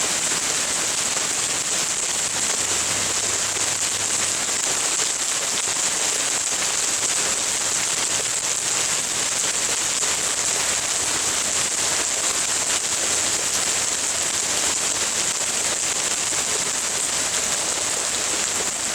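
Hail and heavy rain falling hard in a cloudburst, a dense, steady patter of many small hits.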